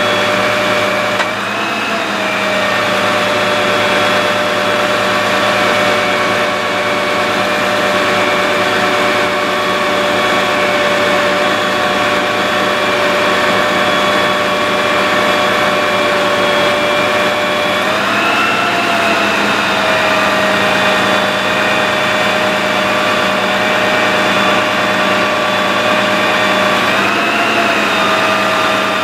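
Steady machine whine of a Dodge 5500 bucket truck running with its PTO engaged, driving the hydraulics of the ETI aerial boom as it is raised and extended. Its pitch lifts briefly three times: about two seconds in, about two-thirds through, and near the end.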